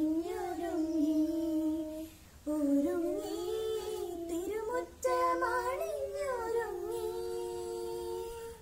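A child singing a slow melody in three phrases, each ending on a long held note, with the voice stopping near the end.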